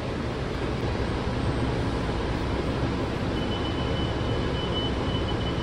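Steady rumble and hum inside a WMATA 7000-series Metro railcar, the car's running and ventilation noise. A faint high steady tone joins a little past three seconds in.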